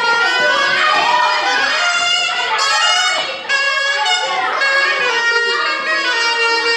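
Music led by loud reed wind instruments playing a lively melody of held and quicker notes.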